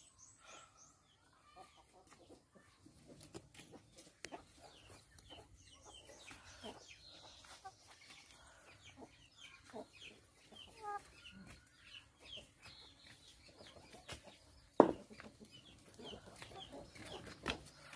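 Chickens clucking at intervals, with one loud clunk of brick on a metal wheelbarrow about fifteen seconds in and a few lighter knocks near the end.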